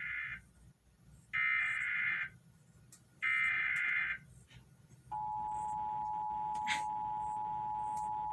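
Emergency Alert System SAME header: the end of one digital data burst, then two more full bursts about a second long each, sent ahead of an Amber Alert activation. The steady EAS attention tone, two pitches sounded together, begins about five seconds in and holds.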